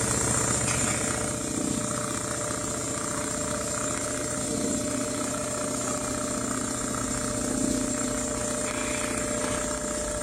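Richpeace automatic CNC sewing machine running at a steady speed, its motor humming over rapid stitching, starting to slow right at the end.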